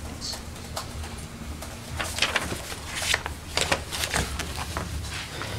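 Scattered paper rustling and light knocks as papers and belongings are handled, several in quick succession in the middle, over a steady low room hum.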